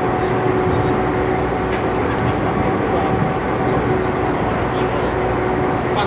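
Steady drone of a ship's engines and machinery heard from on deck, with a constant two-note hum over an even rush of wind and sea.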